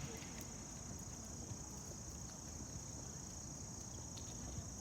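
Steady high-pitched insect chorus trilling without a break, over a faint low rumble of outdoor background noise.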